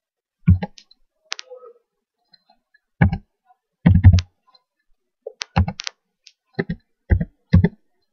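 Computer keyboard keystrokes: about a dozen single key presses at an uneven pace, each a short sharp click with a dull thump, with a pause of about a second around two seconds in.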